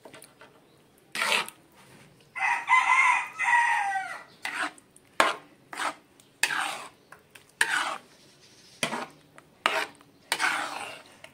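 A metal spoon stirs thick, creamy sauce in a pan, scraping the pan in short strokes about once a second, with one sharp clink a little past five seconds in. A rooster crows once, about two seconds in, a call of nearly two seconds that drops in pitch at the end.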